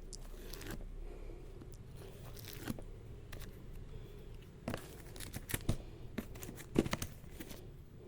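Packaging being handled and torn open: a run of sharp crackles, rustles and snaps, densest and loudest about five to seven seconds in.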